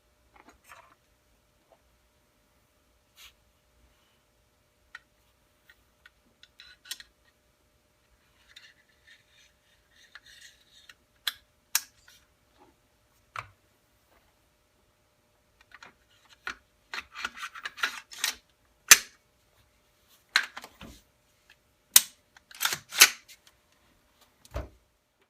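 Handling noise of small hard objects: scattered sharp clicks and clacks, few and faint at first, then closer together and louder in the second half.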